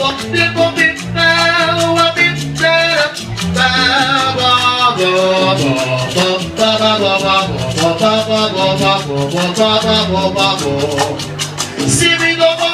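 Salsa music playing loud, with a driving bass line and dense, fast percussion under the melody.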